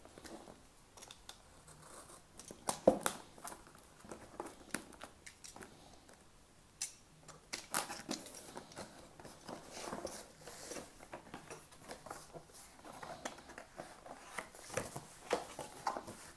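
Snap-off utility knife slitting the seal stickers on a cardboard box: scattered scratches, taps and clicks, with one sharp click about three seconds in. Near the end the cardboard flaps rustle as the box is opened.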